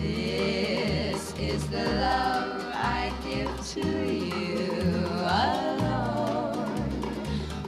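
A song: a singer's voice, with vibrato, over instrumental backing.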